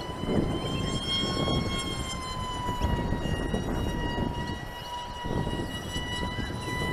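Electric motor and propeller of a ZOHD Dart flying wing in flight, a steady high whine whose pitch drifts slightly up and then back down. An uneven low rumble runs underneath.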